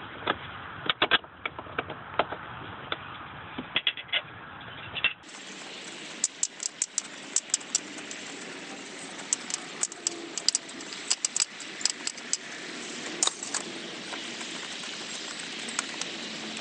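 Irregular metallic clicks and clinks of a box-end wrench and fingers working the nut on a 2008 Mazda3's battery hold-down strap, loosening it, over a steady hiss.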